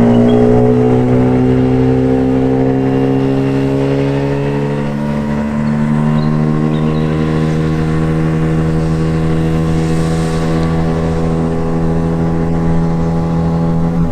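Tohatsu 9.8 hp two-stroke outboard motor at full throttle, pushing a loaded dinghy with a larger spare propeller. Its pitch creeps up as the boat gets onto the plane, then holds steady at top speed.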